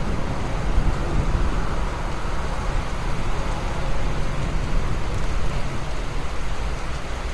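Steady rain falling, an even hiss over a continuous deep rumble.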